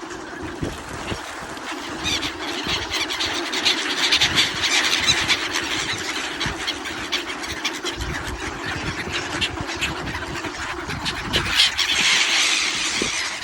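A flock of ducks calling, with many high, squeaky calls overlapping into a continuous chatter. It is loudest about four seconds in and again near the end.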